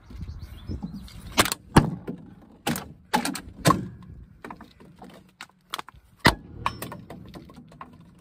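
Footsteps and knocks on a playground structure's perforated metal deck close to the microphone: a string of irregular sharp thuds, some with a metallic clank.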